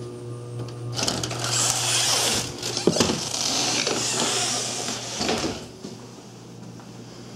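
A door being opened and walked through: several seconds of rustling and scraping with a sharp click about three seconds in. A steady low hum runs underneath.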